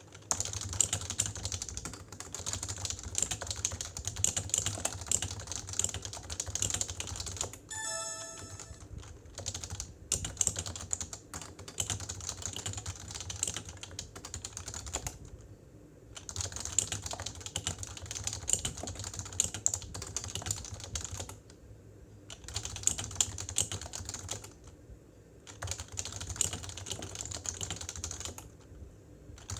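Typing on a PFU Happy Hacking Keyboard Professional 2 with stock, uniform 45 g Topre electro-capacitive switches: runs of rapid keystrokes broken by a few short pauses. A brief tone sounds about eight seconds in.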